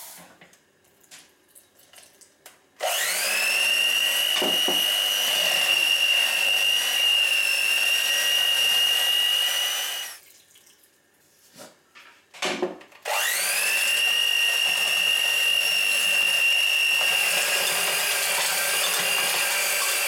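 Electric hand mixer with dough hooks running in a stiff flour-and-water dough in a steel bowl: two runs of about seven seconds each, a steady high whine that rises as the motor spins up. In the short pause between the runs there are a couple of knocks.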